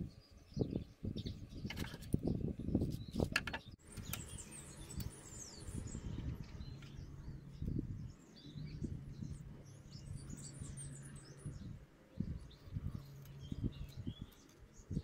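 Small birds chirping intermittently in the background, over low knocks, rustles and a few sharp clicks from yarn and wooden sticks being handled on a wooden table, busiest in the first few seconds. A low steady hum runs through the middle.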